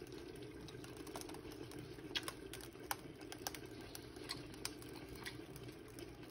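A faint steady low hum with scattered small clicks and crackles at irregular intervals.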